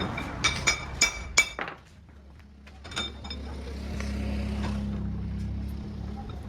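Metal parts or tools clinking together, several sharp ringing clinks in the first second and a half and another about three seconds in; a steady low hum comes up in the second half.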